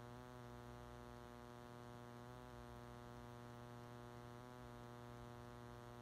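Faint, steady electrical hum with a stack of even overtones: mains hum.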